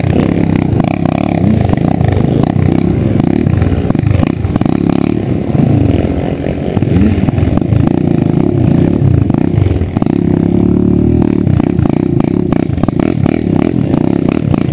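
Dirt bike engine revving up and falling back again and again, its pitch rising and dropping every second or two.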